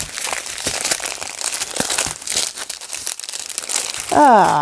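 Small plastic bags of diamond-painting drills crinkling and rustling as they are handled. Near the end a person makes a short falling vocal sound, the loudest moment.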